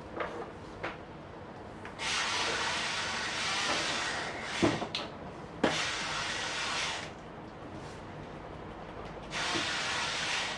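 A drawing tool scratching across paper in long shading strokes: a steady rasping hiss for about five seconds and again near the end, with two sharp taps in the middle.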